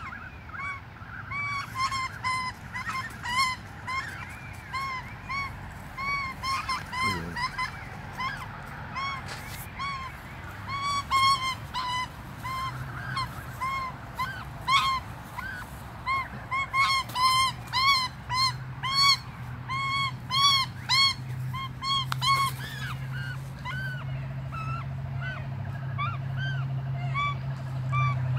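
Australian magpies calling in rapid runs of short, arching squawks, a few per second, loudest in the middle stretch. The calls come from a pair locked together and struggling on the ground, which the uploader takes for mating.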